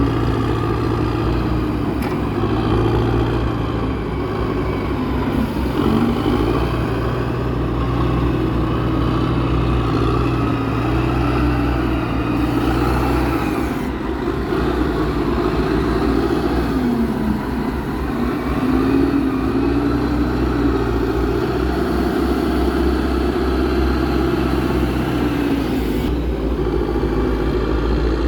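Heavy diesel engine of the logging truck or its loading machinery running steadily, its pitch dipping and rising now and then as the load on it changes.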